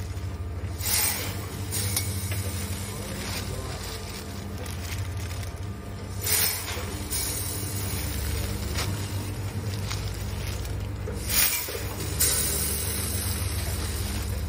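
Two-head linear weigher running, its vibratory feeders giving a steady low hum. Short rushes of dry kibble drop through the discharge funnel into a bag about a second in, about six seconds in, and twice around eleven to twelve seconds.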